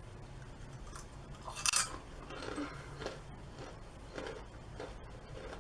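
A person biting into and chewing a crunchy barbecue twist snack, with one sharper crunch a little under two seconds in.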